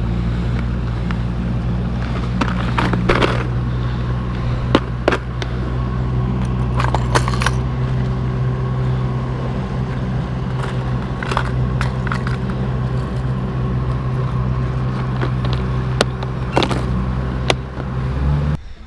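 Boat outboard motor running at a steady drone while the boat is under way, with clicks and rattles from a plastic tackle box and lures being handled over it. The engine cuts off near the end.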